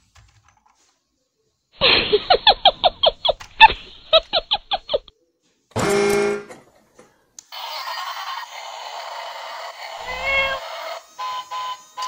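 Battery-operated toy train sounds: a stuttering run of rapid pitched pulses, then a short horn-like toot about six seconds in. After that the toy is switched on and its electronic tune and beeps play over its running motor.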